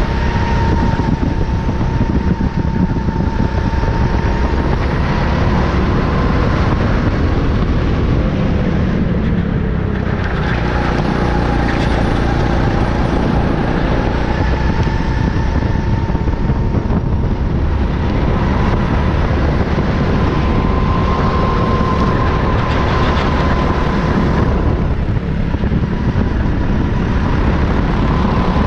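Go-kart engine running hard at racing speed, heard onboard over a heavy low rumble. Its note wavers up and down and drops briefly about three times as the throttle is lifted for corners, then climbs again.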